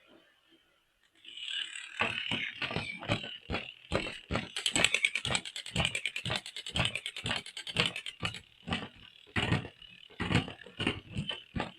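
A plastic toy mechanism clicking in a rapid, even run of about three clicks a second, starting about a second and a half in over a light hiss.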